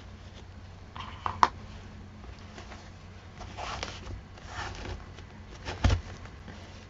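Handmade paper journal being handled and paged through: soft paper rustles and two sharp taps, one about a second and a half in and a louder one near the end.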